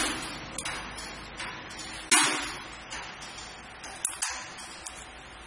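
Small glass vials clinking against each other and the stainless steel feed table as they are pushed around by hand: a few sharp clinks with a short ring, the loudest near the start and about two seconds in, with lighter ticks between.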